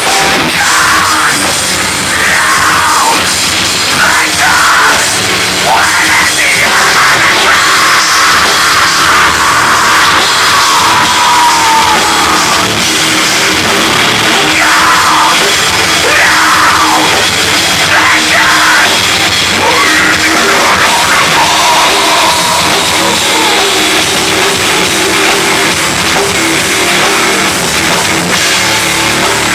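Heavy metal band playing live, loud: distorted electric guitar, bass guitar and drum kit, with shouted vocals over them.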